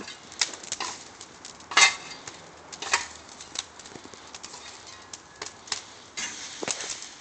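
Wood fire of scrap wood and yard debris crackling and popping in irregular sharp snaps, with one louder crack about two seconds in.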